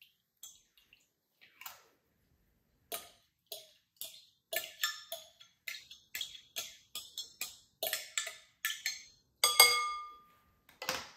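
Metal spoon scraping and tapping against a glass measuring cup: a run of light clicks, about three a second, then a louder knock near the end that leaves the glass ringing briefly.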